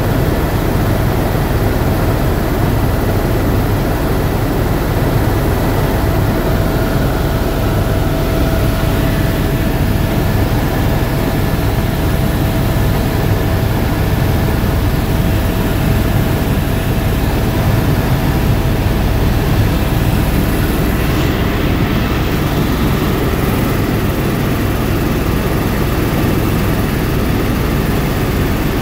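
Helicopter in cruise flight heard from inside the cabin: a loud, steady drone of rotor and engine with rushing air noise. A faint steady whine sits above it, clearest through the middle.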